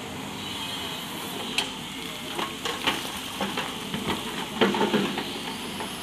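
SANY crawler excavator dumping a bucketload of earth and stones onto a pile, over the steady running of its engine. The falling soil and rocks clatter and thud irregularly from about a second and a half in, heaviest near the end.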